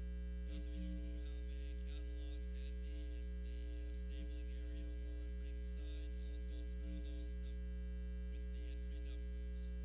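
Steady electrical mains hum, with faint scattered crackles over it.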